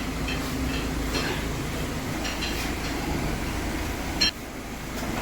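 A steady low mechanical hum with scattered light metallic clinks, and a sharp click about four seconds in, after which the hum drops away.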